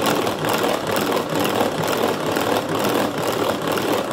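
Tupperware Saetta Chef hand-crank whisk being cranked steadily, its gears and beaters making a fast, even mechanical whirring clatter as they mix muffin batter in the jug.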